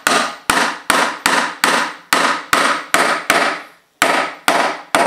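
Repeated sharp taps knocking a bamboo mitered dovetail joint together as it is seated, each knock ringing briefly, about two or three a second with a short pause near the end.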